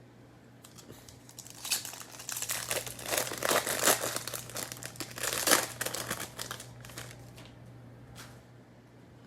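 Foil trading-card pack wrapper being crinkled and torn open: a run of dense crackling from about a second and a half in until about seven seconds.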